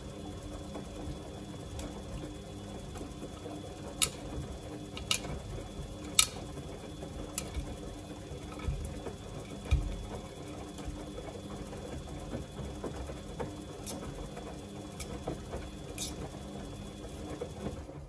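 Samsung front-loading washing machine in its wash cycle: the drum turns with a steady motor hum while the wet load sloshes and tumbles, with sharp clicks now and then and a couple of low thuds about nine to ten seconds in. The sound stops at the end as the drum comes to rest.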